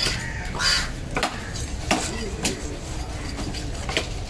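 Long knife slicing a fillet off a queen fish along its backbone on a wooden log chopping block: scraping of the blade through flesh and bone, with several short sharp knocks of the knife against the wood.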